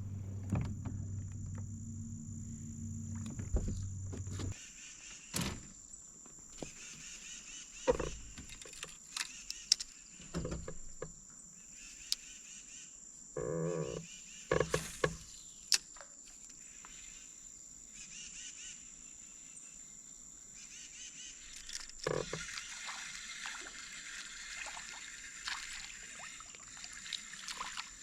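Steady high-pitched insect chorus, crickets or cicadas, with scattered knocks and clicks of fishing tackle and boat handling. A low hum runs under it for the first few seconds, then stops.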